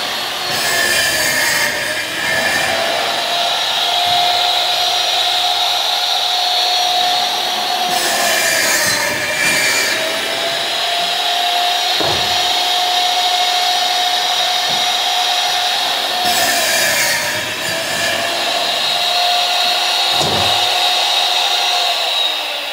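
Vertical panel saw running with a steady whine. Three times the motor dips in pitch under load and a rush of cutting noise rises as the blade goes through a panel. The saw stops near the end.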